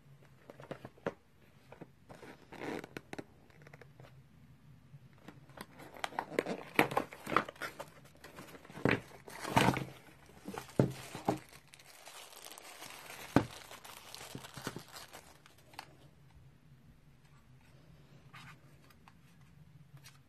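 Plastic packaging bags and a cardboard box being handled: irregular crinkling and rustling with sharp taps and clicks, busiest in the middle and sparse near the start and end.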